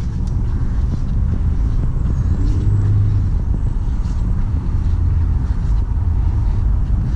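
The supercharged 3.0-litre V6 of a 2013 Audi Q7 idling: a steady low rumble.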